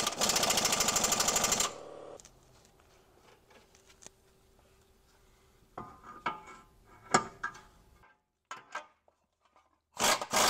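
Impact wrench hammering in a burst of a couple of seconds, then a few tool clinks, and another burst starting near the end: running down the outer tie rod end nuts on a BMW E46's steering knuckle.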